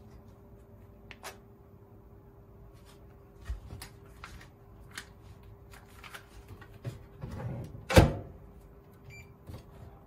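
Microwave oven door swung shut with one loud thud about eight seconds in, after a run of light clicks and knocks from hands at the oven. A short electronic beep follows just after.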